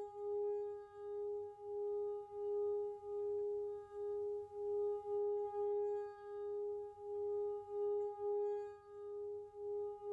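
Tibetan singing bowl ringing steadily, its low tone pulsing in a slow wobble about once every two-thirds of a second, with fainter higher overtones above it.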